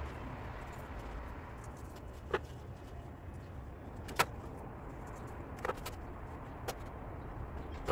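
Gloved hands working a cloth in a plastic basin of wet cement slurry: a steady low background rumble with four short, sharp clicks or knocks spread through it, the loudest a little after four seconds in.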